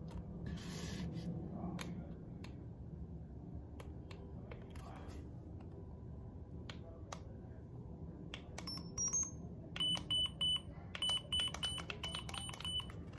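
Instant print camera beeping: a run of short, high electronic beeps, about three a second, in the last few seconds, after a few faint button clicks.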